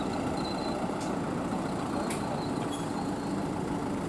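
Outdoor traffic ambience carried by the steady low hum of an idling engine, with a couple of brief faint ticks about one and two seconds in.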